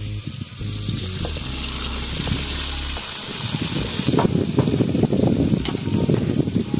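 Chicken drumsticks sizzling in a hot wok of sautéed onion and garlic over a butane burner, with a steady hiss. From about three seconds in, crackling thickens as the pieces are turned with a metal spatula, and a few sharp clicks of the spatula are heard against the pan.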